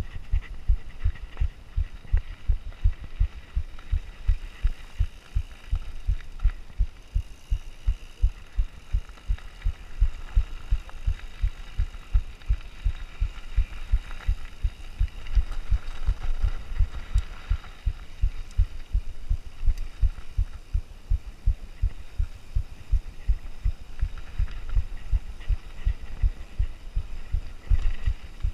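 Mountain bike ride heard through a rider-mounted action camera: a rapid, regular low thumping, about three to four a second, over a faint rushing of tyres and air.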